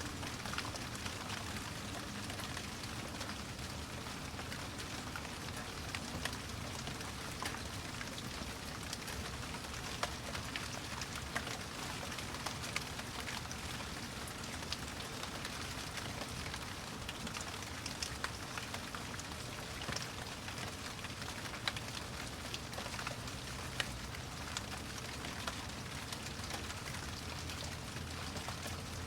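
Steady rain falling, with individual drops ticking sharply here and there over the even hiss.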